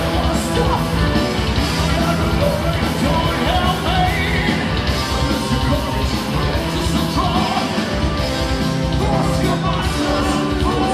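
A symphonic metal band playing live and loud, with drums, guitars and keyboards under a lead vocalist singing, heard from among the crowd in the hall.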